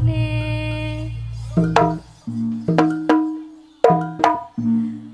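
Javanese gamelan accompaniment to a jaranan dance: a deep gong tone rings out and fades over the first two seconds. After that come single struck bronze notes, each ringing on, about one a second.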